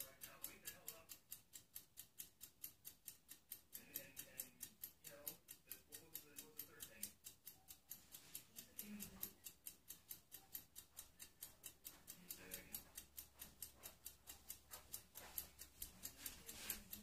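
Near silence: a faint, fast, even ticking of about five clicks a second, with faint distant voices underneath.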